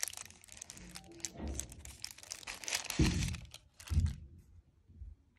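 Thin paper wrapping crinkling and rustling as it is pulled off a plastic blush compact by hand. Two louder low thumps come about three and four seconds in.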